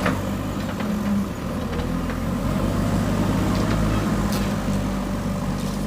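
JCB 3DX backhoe loader's diesel engine running steadily under load, with a few sharp knocks from the machinery working the broken concrete.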